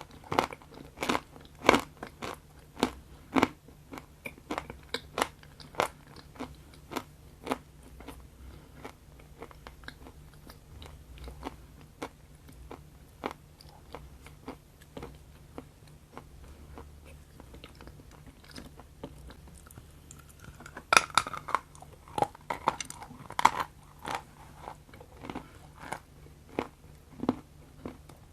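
Close-miked chewing of moist chocolate: sticky, wet mouth clicks and crunchy bites. They come thick at first, thin out through the middle and pick up again in a louder cluster about 21 seconds in.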